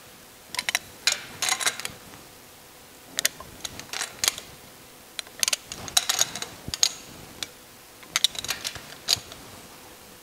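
Ratchet torque wrench clicking in short runs of rapid ticks, about four bursts, as it snugs down the nylock nuts on an air-cooled Porsche engine's magnesium valve cover. The nuts are being taken only to a light torque of about 18 newton meters, so the wrench's own break-over click is not reached.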